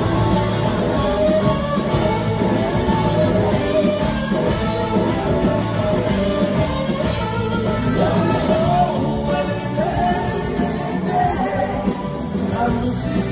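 A blues-rock band playing live in a concert hall, with two drum kits and electric guitars. A lead line slides up and down in pitch about eight to ten seconds in.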